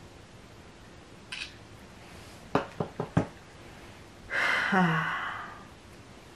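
Four quick sharp clicks, then a loud breathy vocal sound whose pitch falls in steps, lasting about a second, as a plastic cheek retractor is pulled out of the mouth.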